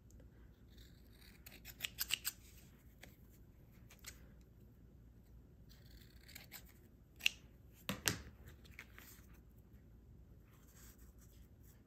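Scissors snipping a velvet ribbon to trim its frayed end: a few quiet, separate cuts, a cluster of them about two seconds in and the sharpest around eight seconds in, with light handling rustle between.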